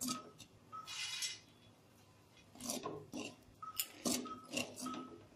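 A steel spoon scraping and stirring popcorn kernels through hot salt in a steel kadhai. The strokes come unevenly, with gritty rasps and metal clinks, bunched more thickly in the second half.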